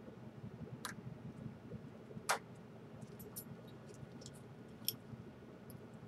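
Light clicks and taps of small parts being handled inside an opened Samsung Galaxy Note Pro 12.2 tablet, with the sharpest click a little over two seconds in and another near five seconds, over a low steady hum.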